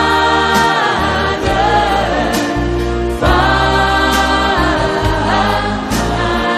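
Gospel worship song: voices singing long held notes with vibrato over steady bass notes, with light high percussion strokes recurring about every two seconds.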